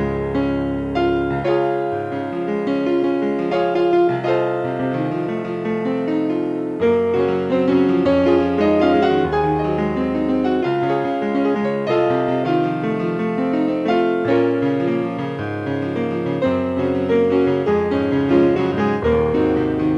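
Solo piano playing a classical sonata: full chords over deep bass notes that are held and changed every few seconds.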